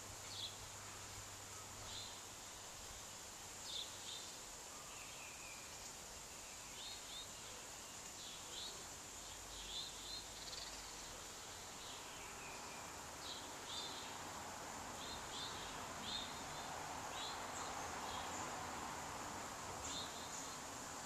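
Outdoor ambience: birds chirping in short calls every second or two over a steady, high-pitched insect drone, with a soft rushing swell about three quarters of the way through.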